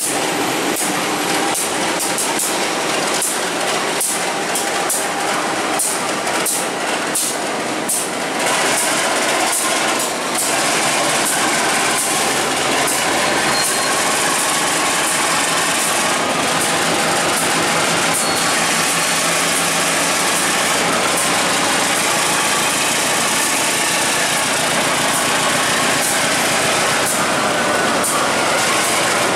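Container freight train passing close by: a CC201 diesel-electric locomotive runs past, then container wagons roll by. Its wheels clack sharply over the rail joints for the first several seconds, then settle into a steady rolling rumble and hiss under a low diesel hum.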